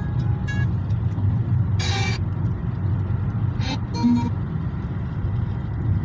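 Steady low rumble of a car on the move, engine and road noise, with two brief rustling bursts, one about two seconds in and one near four seconds.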